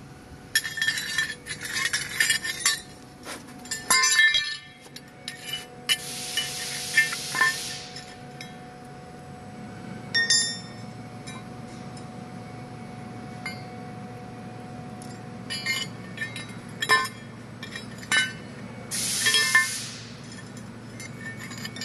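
Laser-cut steel parts clinking and clattering against each other and the floor as they are handled, with two longer hisses about six and nineteen seconds in. A steady low machine hum runs underneath.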